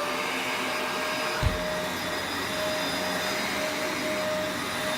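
Shark Rotator Professional Lift-Away upright vacuum running steadily on carpet, its motor giving an even whine, with one dull low thump about a second and a half in.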